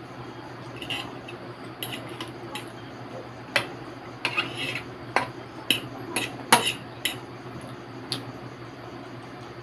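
Metal fork clinking and scraping against a plate while twirling noodles: a few light clinks, then a quick run of sharper clinks in the middle, and one more near the end.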